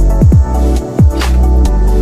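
Electronic background music with a heavy sustained bass and several falling swoops in pitch.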